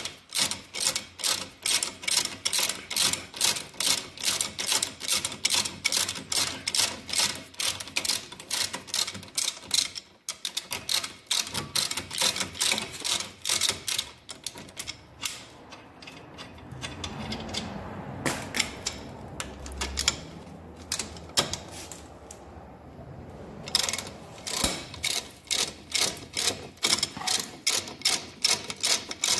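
Ratchet wrench clicking in an even rhythm, about three clicks a second, as it backs out a rusty 17 mm front brake caliper bracket bolt. Partway through, the clicking thins out to a few clicks over a low scraping, then the steady clicking resumes near the end.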